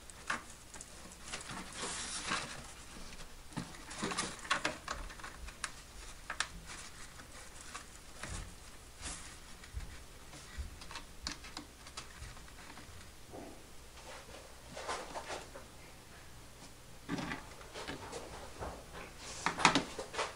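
Hands working on a foam RC airplane's aileron linkage: scattered light clicks, taps and rustles of fingers on foam and small plastic parts, with a louder cluster of knocks and rustles near the end.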